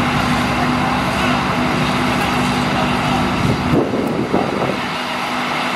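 A sand transport ship's engine running steadily with a constant hum under outdoor noise. The hum drops away about two-thirds of the way through, leaving a rougher rumble with a few irregular knocks.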